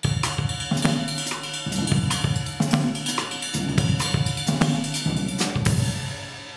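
Drum kit played with sticks: a fast run of bass drum, snare and cymbal strokes, ending about five and a half seconds in on a last cymbal hit that rings and fades away.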